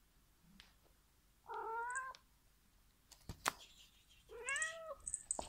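Domestic cat meowing twice, two drawn-out meows about two and a half seconds apart, the second rising and then falling in pitch. A single sharp tap falls between them.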